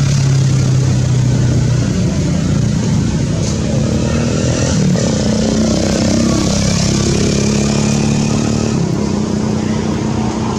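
Motor vehicle engines running steadily, a low hum whose pitch shifts slightly up and down.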